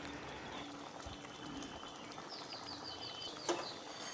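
A small bird calling in the background: a quick run of about eight short falling chirps lasting about a second, over faint background noise. A single sharp knock comes near the end.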